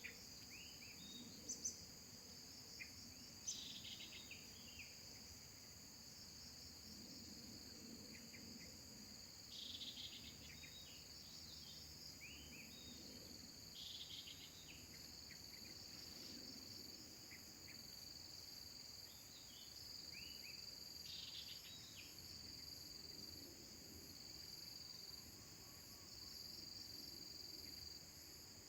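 Steady chorus of crickets or cicadas with a fast pulsing high drone, and scattered clusters of short, high chirps from birds every few seconds.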